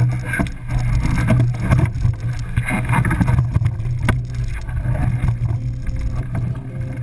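Knocks and scrapes on an aluminum canoe hull as a paddler climbs in and pushes off, over steady wind rumble on the camera microphone.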